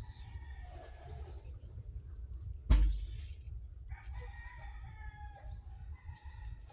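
A rooster crowing once, a long call beginning about four seconds in. Before it, a single sharp thump is the loudest sound.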